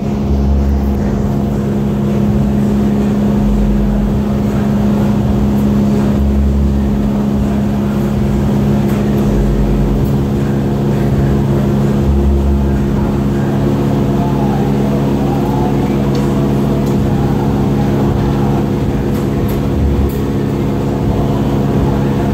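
Steady, loud machine drone with a constant low hum, a low throb coming and going every few seconds underneath it.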